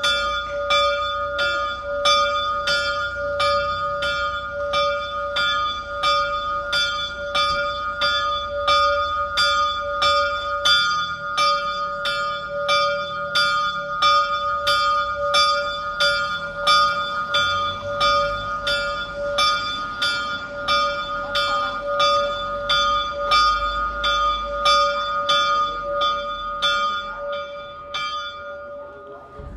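The small bell at the top of the Stará Bystrica astronomical clock is struck over and over, about one and a half strokes a second, with the tone ringing on between strokes. This is the clock's hourly bell, rung while the apostle figures move past. The strokes stop about a second before the end, and the ringing dies away.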